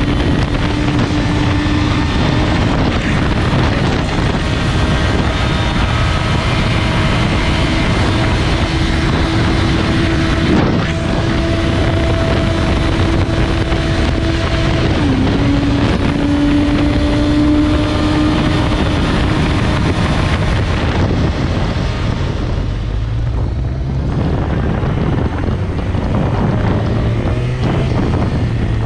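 Suzuki GSX-R1000 K5 inline-four engine running while the bike is ridden, with wind rushing over the microphone. The engine note holds steady and rises gently, dips once about halfway through, then climbs again. About three-quarters of the way in, the wind noise and the engine note drop off to a lower, duller sound.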